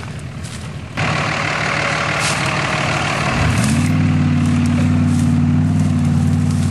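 Diesel pickup truck engine working hard close by as the truck pushes through a mud hole: it gets suddenly louder about a second in, then settles into a steady high-revving drone from about three and a half seconds.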